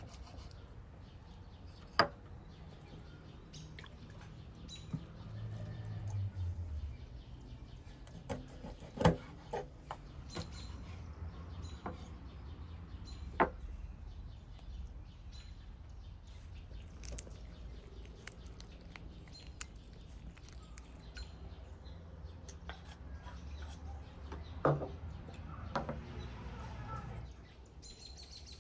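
Birds chirping in the background, broken by a few sharp knocks and clacks.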